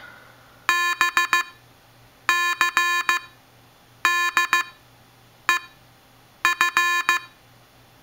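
Morse code beeped as a tone through a ham-radio speaker driven by an Arduino: the letters B, C, D, E and F, sent as groups of short and long beeps with a pause between letters. The E, about five and a half seconds in, is a single short beep.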